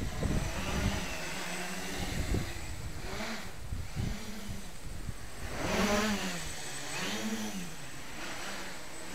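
Homebrew wooden-frame quadcopter's electric motors and propellers buzzing in flight, the pitch swelling up and dropping back several times as the throttle changes, highest and loudest about six seconds in.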